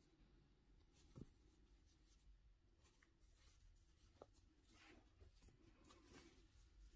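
Near silence, with the faint scratchy rustle of a crochet hook working yarn and a couple of soft small clicks.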